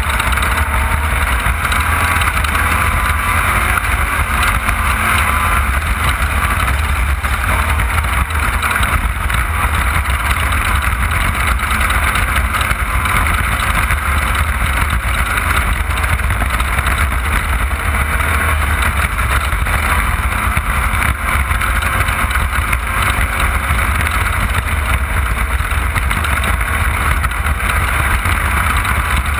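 Off-road race car running at speed, heard from an onboard camera: a loud, steady engine drone over a heavy low rumble.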